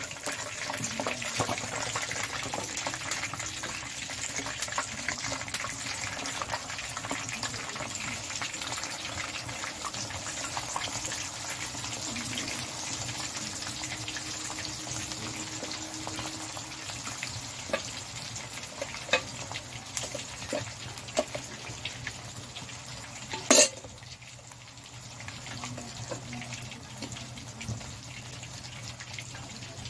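Battered chicken pieces deep-frying in hot oil in a steel wok: a steady sizzle with scattered crackles and pops. A single sharp knock comes about two-thirds of the way through, and the sizzle is a little quieter after it.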